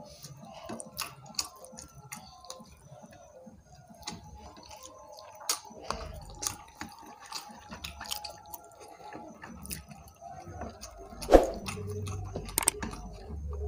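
Eating by hand: fingers mixing rice and curry on plates, with chewing and lip smacks, heard as scattered small wet clicks and squishes. A low rumble sits underneath from about halfway, and there is one sharper click near the end.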